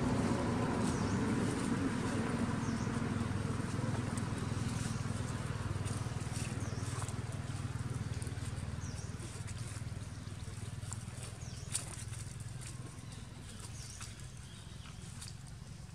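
Outdoor ambience: a low steady rumble that slowly fades, with short high chirps every second or two and a few faint clicks.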